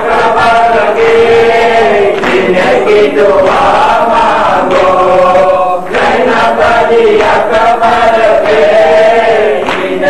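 A group of men chanting a noha, a Shia lament, in unison, with the slaps of matam chest-beating sounding among the voices.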